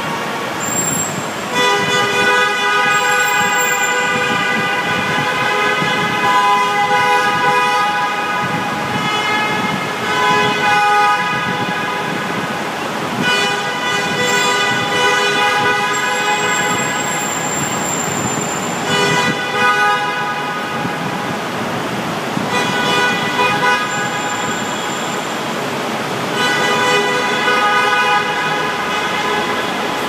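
Several car horns honking at once in a road tunnel, held for long stretches with short breaks, their different pitches overlapping, over the steady noise of slow traffic.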